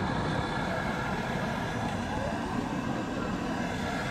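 Steady, even noise of the stove burner under a large frying wok, with faint crowd chatter.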